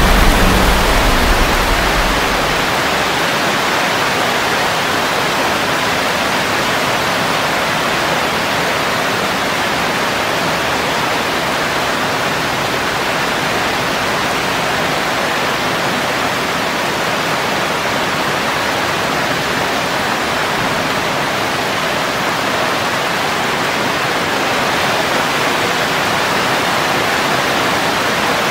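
Heavy rain falling steadily, an even hiss. A low rumble of thunder dies away in the first couple of seconds.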